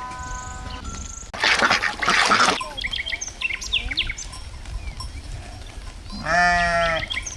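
A loud, noisy rustle lasting about a second, then a scatter of small bird chirps. Near the end comes one wavering bleat from a sheep or goat, about a second long.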